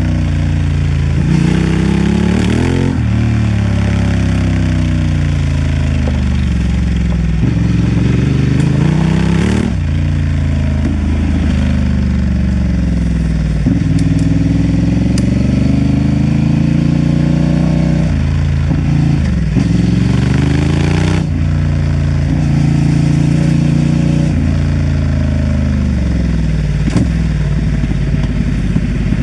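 Honda Transalp XL750's parallel-twin engine under way off-road, its pitch climbing and then dropping sharply again and again as the throttle is worked and eased, about every five seconds.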